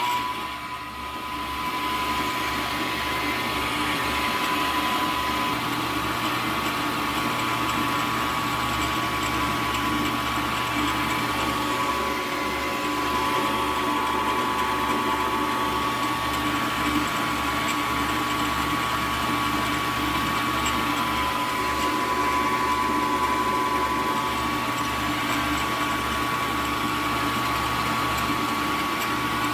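Milling machine motor and spindle running steadily, with a high whine and a low, even pulsing.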